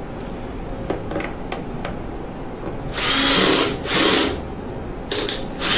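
Power driver driving screws into a furnace's sheet-metal jacket to fasten a plastic condensate drain bulkhead coupling, running in short bursts: two longer runs about three seconds in, then two quick ones near the end. A few light clicks of handling come before it.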